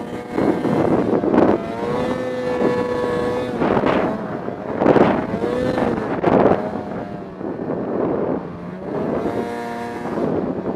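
Snowmobile engine running under way, its pitch holding and then rising and falling as the throttle is eased off and opened again. Several short surges of rushing noise come and go over it.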